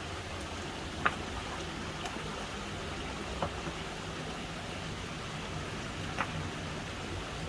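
Mountain stream water rushing steadily, with three short sharp ticks about one, three and a half and six seconds in.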